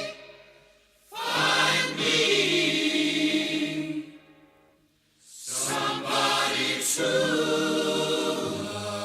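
Choral music: several voices singing long held notes, which fade out twice, once about a second in and again around four to five seconds in, before coming back.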